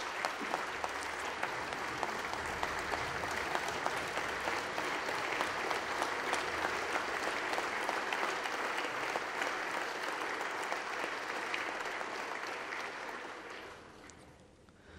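A chamber full of deputies applauding, a long spell of dense clapping that dies away near the end.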